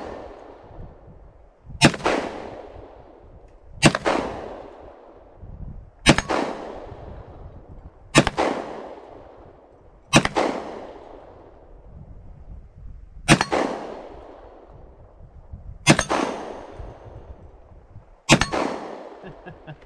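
Glock 40 pistol in 10mm Auto fired eight times at a slow, steady pace, about one shot every two seconds with one longer pause. Each shot is followed by a ringing tail, with the steel targets clanging as they are hit.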